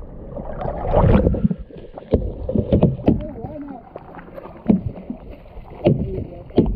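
Water splashing and sloshing around a hooked Pacific halibut as it is hauled up to the surface beside a boat's hull, with many sharp knocks mixed in.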